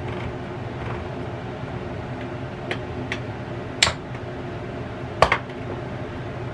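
A handheld can opener being worked on a metal can of peas, its cut lid coming free: a few sharp metallic clicks and clinks, two of them louder a little past the middle. Under it runs the steady hum of a countertop air fryer oven.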